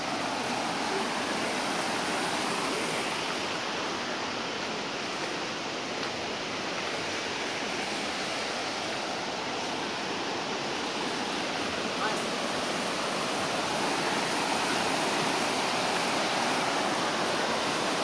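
Steady rush of a shallow rocky creek tumbling over stones below a waterfall, a little louder in the last few seconds.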